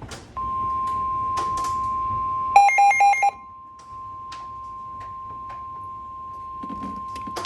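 Weather-radio 1050 Hz warning alarm tone: a single steady high tone that begins about half a second in. Around two and a half seconds in, four short, loud electronic beeps sound over it, after which the tone carries on quieter. Scattered sharp taps are heard throughout.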